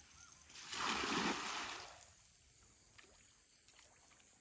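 Weighted cast net landing on the water: a short splashy rush beginning a little under a second in and dying away over about a second.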